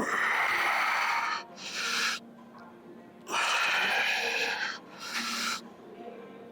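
A man breathing hard after exertion: long, forceful breaths of about a second and a half, each followed by a short one, repeating about every three seconds.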